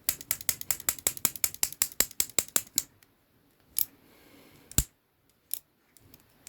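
Ozark Trail folding knife with a shaft lock clicking as it is worked open and shut: a fast run of sharp metal clicks, about seven a second for roughly three seconds, then a few single clicks. The knife is being worked in to loosen its stiff action.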